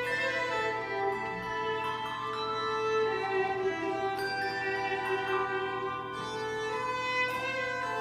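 Handbell choir ringing a slow hymn tune: sustained, ringing chords with new bells struck every second or two.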